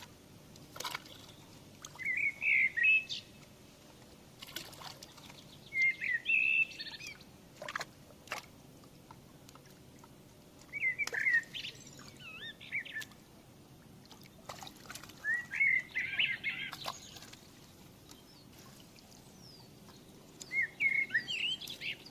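A songbird singing a short warbled phrase about every four to five seconds, five times, with a few sharp clicks in between.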